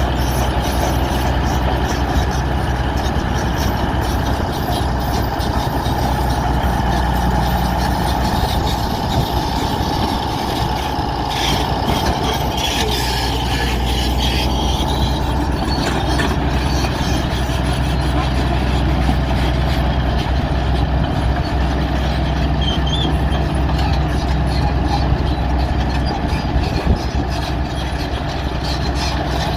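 Bulldozer's diesel engine running steadily, with a high squeal from about eleven to sixteen seconds in.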